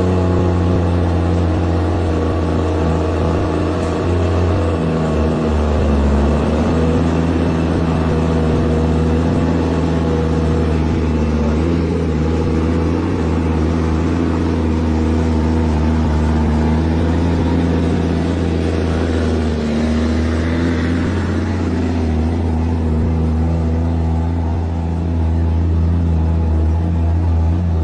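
The truck engine of the 'Continental' rumbles steadily as it pulls hard up a climb under load. Its pitch shifts a little about five seconds in and again about twenty seconds in.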